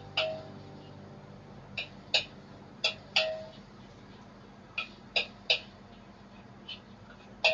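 Kitchenware clinking: about ten short, sharp clinks in loose pairs, some ringing briefly, as utensils or dishes knock together during cooking.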